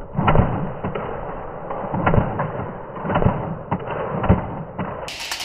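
A series of about six muffled thuds at uneven intervals, with the high end cut away.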